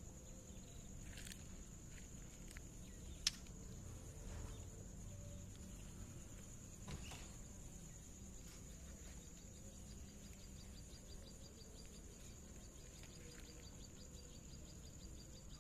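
Quiet outdoor ambience with a steady high-pitched drone and a few faint, short bird chirps. A single sharp click comes a little over three seconds in, and a fast run of faint high ticks fills the last five seconds.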